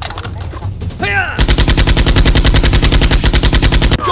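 Rapid automatic gunfire, about ten shots a second, starting about a second and a half in and cutting off suddenly near the end.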